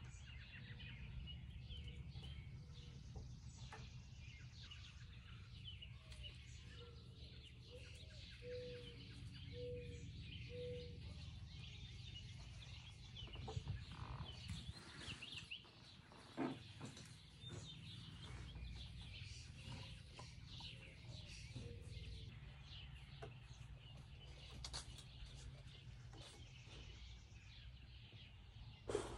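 Outdoor backyard ambience of many small birds chirping and twittering, with a run of five short, lower calls about a quarter of the way in, over a steady low rumble. A few faint knocks sound in the middle and just before the end.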